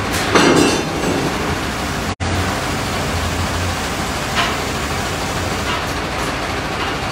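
Forklift engine running inside a steel shipping container: a steady mechanical noise with a low hum. There is a brief louder burst about half a second in, and the sound cuts out for an instant a little after two seconds.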